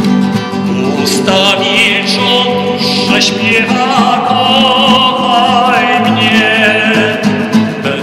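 A man singing held notes with a strong vibrato, accompanying himself on a classical guitar; the guitar plays alone for about the first second before the voice comes in.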